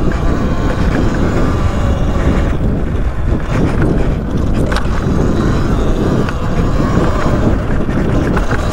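Talaria Sting R MX4 electric dirt bike being ridden along a dirt trail: a steady, loud rush of wind on the microphone over tyre and drivetrain noise, with a few faint clicks.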